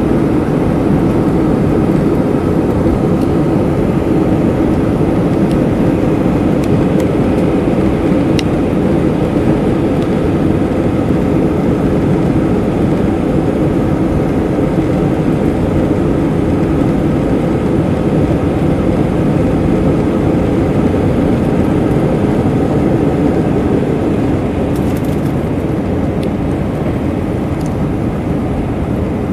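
Cabin noise of an Airbus A319-112 on its takeoff run and initial climb: its CFM56 turbofan engines run steadily at takeoff power over the rumble of the airframe. The sound eases slightly near the end.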